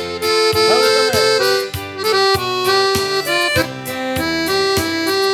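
Accordion playing an instrumental melody of held chords over a steady beat in a sertanejo song.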